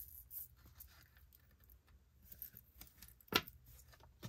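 Faint light clicks and rustles of a metal chain and oval stone pendant being handled and untangled by hand, with one sharper click a little over three seconds in.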